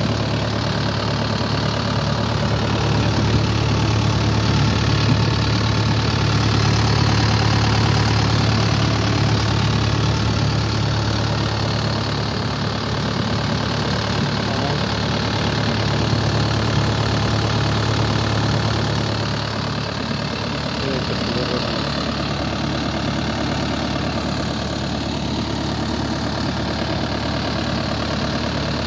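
The four-cylinder diesel engine of an XCMG XE55DA mini excavator idling steadily with its engine cover open.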